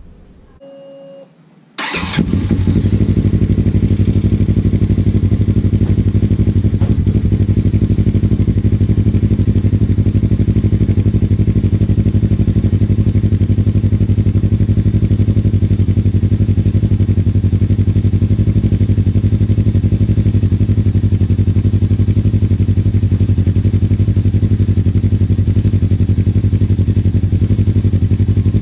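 Polaris RZR XP1000's parallel-twin engine, breathing through a Trinity Racing Stage 5 dual slip-on exhaust, starting about two seconds in and then idling steadily at an even pitch.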